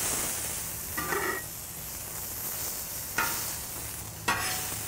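Two 80/20 ground-beef patties sizzling steadily on a hot flat-top griddle, with a few sudden louder crackles about a second in, three seconds in and near the end.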